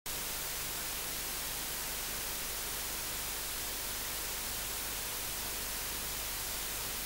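Steady hiss with a faint low hum: the blank noise floor of an analogue recording, with no other sound on it.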